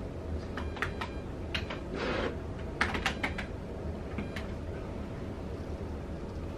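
Keys and buttons on an ultrasound machine's control panel clicking in irregular little clusters as the sonographer marks fetal head measurements, with a short rustle about two seconds in. A steady low hum runs underneath.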